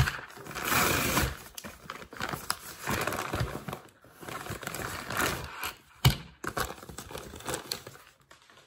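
Brown kraft paper mailer bag crinkling and rustling in irregular bursts as it is pulled open and handled, with one sharp knock about six seconds in.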